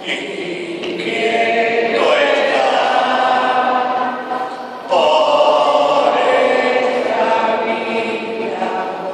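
A choir of many voices singing a slow liturgical hymn in unison, holding long notes, with a new phrase starting about two seconds in and again about five seconds in.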